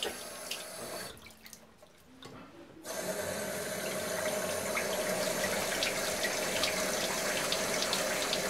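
Water running steadily from a faucet into a sink. It drops away about a second in and comes back, steady and a little louder, about three seconds in.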